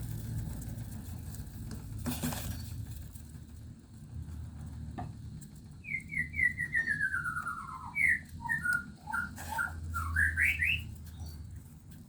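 A bird singing: a run of short notes falling in pitch about halfway through, then a few scattered notes and a quick rising run near the end, over a low steady rumble.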